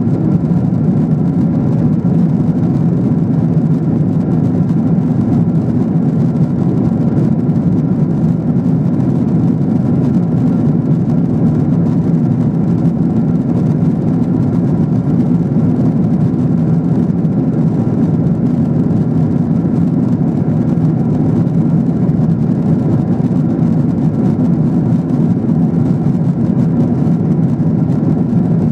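Cabin noise of a Boeing 777-300ER at cruise, heard inside the economy cabin at a window seat: the even drone of airflow and the GE90-115B engines, a loud, low, unchanging roar with a few faint steady hums above it.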